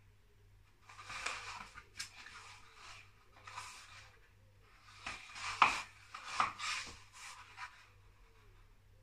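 A sheet of paper rustling and crinkling as it is bent and moved by hand, in several short bouts with a few sharp crackles. The loudest crackle comes a little past halfway.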